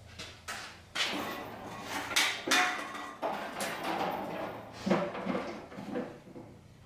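Irregular clunks, knocks and scrapes of metal equipment being handled and moved while a small welder and its cables are set up, over a faint steady hum.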